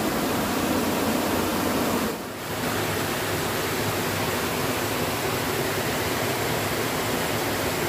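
Fast river water pouring over a small weir and rushing past, a steady dense rush; the current is strong after heavy rain. The level dips briefly about two seconds in.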